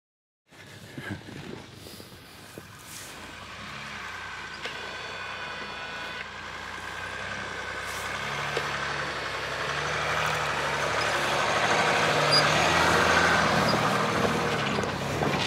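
Land Rover Discovery's 2.7 TDV6 diesel engine pulling up a snowy slope with snow chains on its rear tyres, the engine and the chained tyres in the snow growing steadily louder as it approaches and passes close by.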